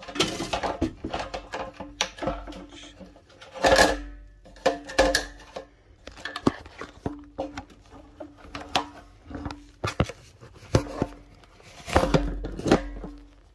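Hard plastic knocking, clicking and scraping as a plastic cap is worked into the top opening of a pool sand filter tank to hold the centre standpipe in place, with a heavier cluster of knocks about four seconds in and again near the end.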